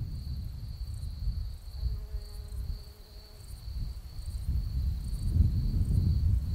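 Crickets trilling steadily and high, over a low rumble that swells and fades, loudest in the last couple of seconds.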